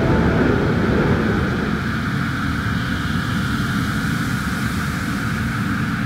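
Steady, dense rumble of a spaceship engine sound effect, with no distinct pitch.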